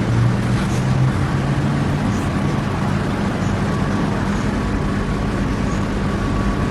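Steady low mechanical hum and rumble, with a held low tone that shifts pitch slightly in the first couple of seconds.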